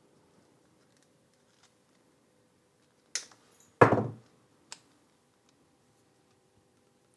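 Tools handled on a workbench during board repair: a sharp click a little after three seconds in, a louder clunk just after it, then a light tick, over a faint steady hum.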